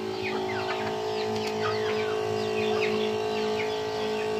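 Chickens clucking and chirping, many short calls in quick succession, over a steady hum.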